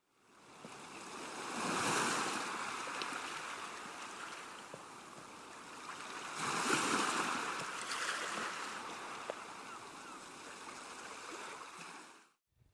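A steady rushing noise fades in, swells twice about five seconds apart, and cuts off suddenly near the end.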